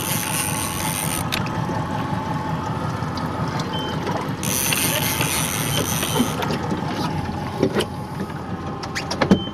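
Steady noise of a boat at sea, its engine running under the sound of wind and water. Twice, at the start and about halfway through, a high hiss rises for a second or two and stops sharply.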